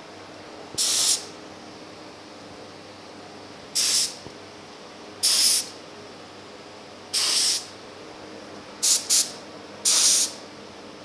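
Gravity-feed spray gun hissing in seven short bursts of about half a second, two of them close together near the end, as its trigger is pulled to lay down polyester primer. A steady low hum runs underneath.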